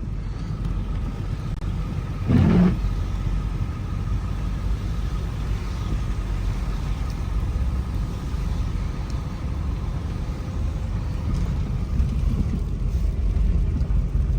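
Ford Excursion creeping slowly down a steep snow-covered road in four-wheel drive: a steady low rumble of engine and tyres, with a brief louder noise about two and a half seconds in.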